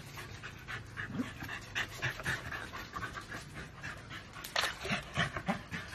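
Dog panting in quick, uneven breaths.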